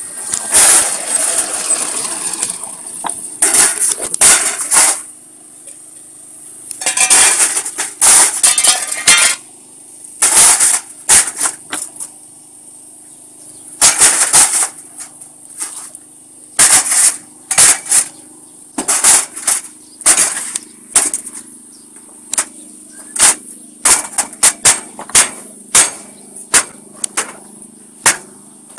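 Irregular sharp clacks and clinks of concrete paving blocks being handled and knocked into place on a paver laying machine, sometimes several a second, over a low steady hum from the machine.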